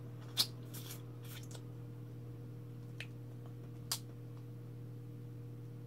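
Cooked crab (alimasag) shell being cracked and pulled apart by hand and sucked on, giving a few sharp cracks, the loudest about half a second in, with softer sucking and crunching noises between. A steady low hum runs underneath.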